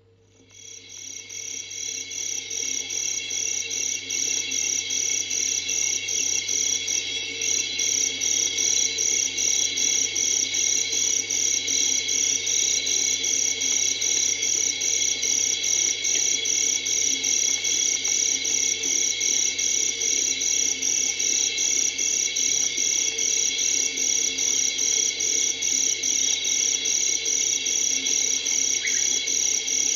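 A chorus of night insects, crickets or cicadas, chirring steadily in an even pulse of about two to three beats a second. It fades in over the first few seconds, a night-time insect atmosphere from a 1970 sound-effects record.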